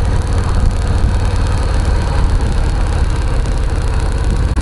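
Harley-Davidson Softail Low Rider's V-twin engine running steadily at cruising speed, its deep exhaust pulses under wind noise on the microphone.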